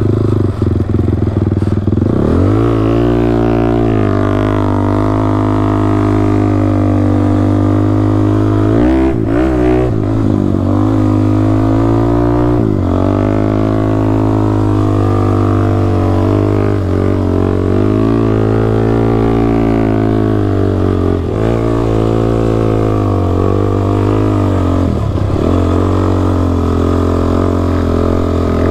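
Sport quad (ATV) engine running hard, its pitch rising and falling as the throttle opens and closes, with a few quick drops in revs along the way.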